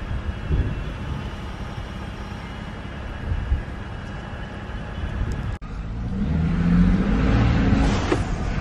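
Ford F-150 3.5L EcoBoost twin-turbo V6, fitted with a CVF dual cold air intake, running with a low steady rumble. After about five and a half seconds, from inside the cab, it pulls away: the engine note and a hissing turbo intake whoosh build up loudly over the last two seconds.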